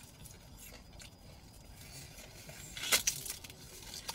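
Quiet mouth sounds of chewing crispy hash browns, with one short, sharp crackle about three seconds in.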